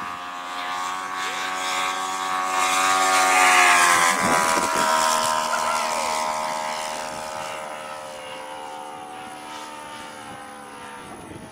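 Engine of a radio-controlled scale Hellcat model airplane making a pass: its propeller drone grows to its loudest about three and a half seconds in, drops in pitch as the plane goes by, then fades away.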